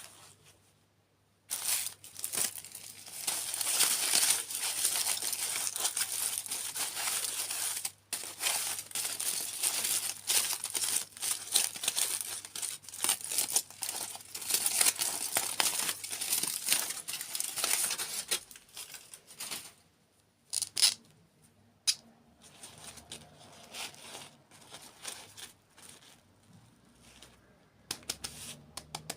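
Crinkly packaging being crumpled and torn close to the microphone: dense, continuous crinkling for the first half, thinning to scattered crackles and clicks later on.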